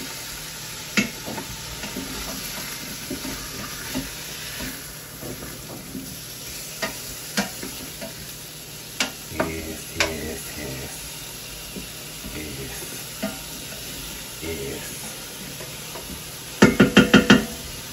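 Food sizzling in an Instant Pot on sauté while a spoon stirs it, with scattered knocks of the spoon against the pot. Near the end comes a quick run of about five loud knocks.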